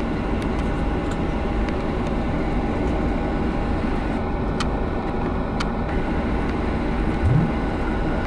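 Cabin noise inside a Boeing 737-700 taxiing after landing: the steady rumble of its CFM56 engines at idle, with a thin steady whine over it and a few faint clicks. About seven seconds in, a brief low sound rises in pitch.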